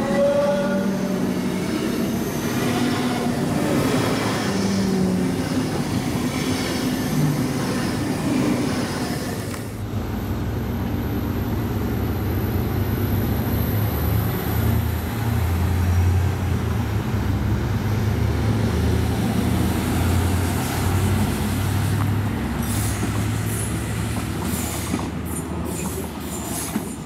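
DB Class 425 electric multiple unit pulling away, its traction converter's rising whine passing into wheel and running noise as the cars roll by. About ten seconds in the sound changes abruptly to a Bombardier Itino diesel railcar running past with a steady deep engine drone.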